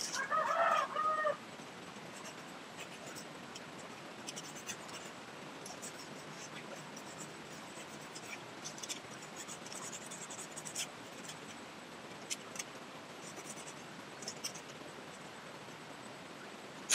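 A chicken clucks for about a second at the start. After that come faint, scattered light ticks and scratches, and a single sharp click at the very end.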